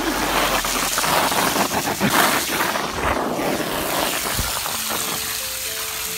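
Garden hose spraying water, a steady hiss with many small spatters of drops.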